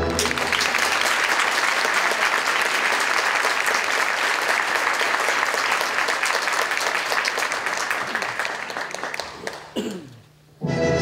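Audience applauding: dense clapping that thins out after about eight seconds and stops, followed by a brief hush, then the orchestra starts playing again just before the end.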